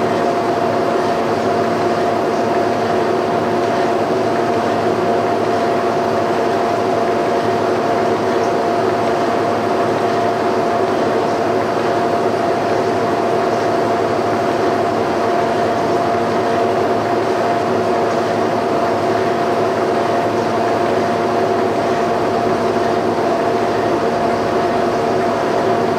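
Power-driven boring bar running steadily while it bores out a worn, egg-shaped hole in a steel suspension frame: a constant machine hum with a few steady tones that does not change.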